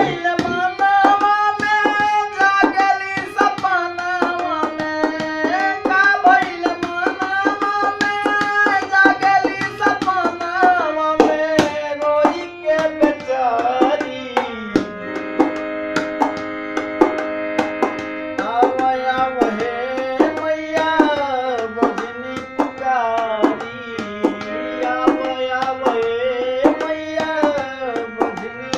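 Instrumental interlude of a Bhojpuri devotional song: tabla keeps a steady, busy rhythm under a sustained melodic lead that slides between notes.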